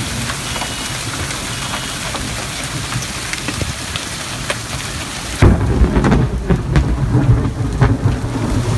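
Golf-ball to quarter-sized hailstones pelting the ground and parked cars: a steady hiss of falling ice dotted with sharp clacks of single stones striking. About five seconds in, the sound turns suddenly duller and louder, with a heavy, uneven low rumble.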